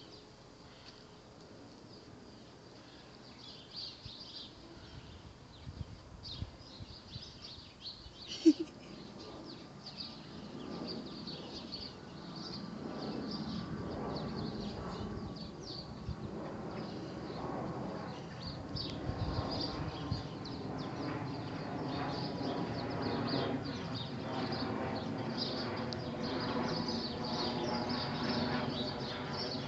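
Small birds chirping and twittering steadily in the background, with one sharp click about eight seconds in. From about twelve seconds in, a steady low hum made of several held tones grows louder beneath the birdsong.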